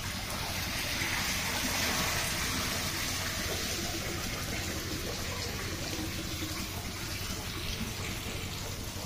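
Steady rush of running or pouring water, a little stronger in the first few seconds.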